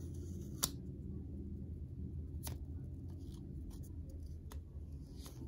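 Clear plastic protective film crinkling as it is peeled off an AirPods Pro charging case, with a few sharp clicks, the loudest about half a second in. A steady low hum runs underneath.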